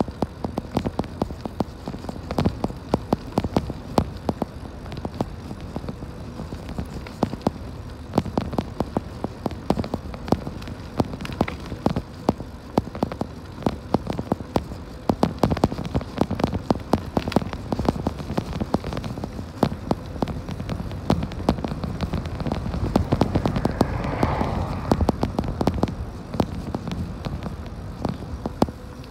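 Ride noise from an e-bike rolling along a concrete path: a steady low rumble of tyres and wind with constant irregular rattling clicks from the bike and camera shaking.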